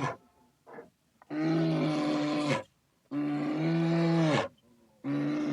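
An animal calling over and over: long, steady-pitched calls of about a second and a half each, with short quiet gaps between them, the last one starting near the end.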